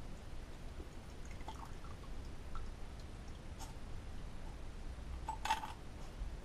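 Cleaning liquid dripping and trickling off a wire basket of small engine parts as it is lifted out of an ultrasonic cleaner's tank, with one brighter short clink near the end.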